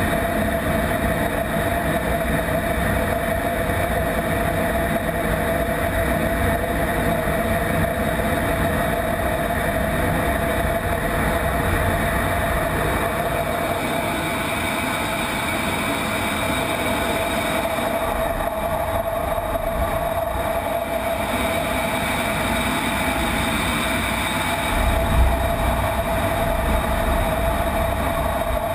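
Steady cockpit noise of an F-16 in flight: its Pratt & Whitney F100 turbofan and the rushing air heard inside the canopy, with a steady mid-pitched whine. A brief low rumble comes late on.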